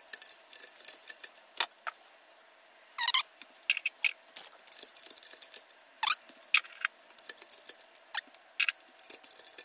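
Metal engine parts clinking and rattling as they are handled on a stripped 4.8 L LS engine block, with a few sharp clinks that ring briefly.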